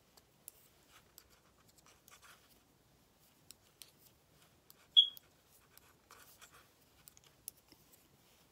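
Faint clicks and scratches of a small circular knitting needle and cotton yarn as purl stitches are worked by hand, with one brief, sharp high ping about five seconds in.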